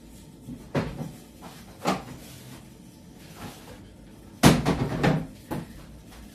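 Kitchen cabinet doors and drawers being opened and shut while someone searches for something: a few separate knocks, then the loudest bang about four and a half seconds in with a short clatter after it, and another bang at the very end.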